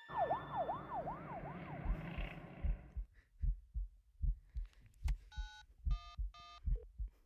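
Heartbeat sound effect: low thumps in pairs at a steady pace, starting about two seconds in. It opens over a rushing hiss with a quickly repeating falling chirp. In the second half come three short electronic beeps.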